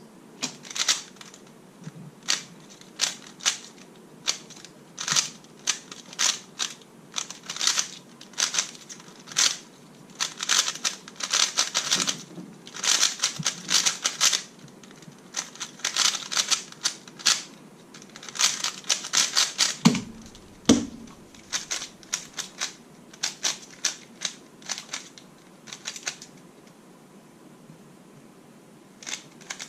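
Rubik's Speed Cube by Gan, with a 356-style mechanism and GES nuts, being turned fast during a speed solve: clusters of quick plastic clicks and clacks from the layer turns, broken by short pauses. A single low thump comes about two-thirds of the way through.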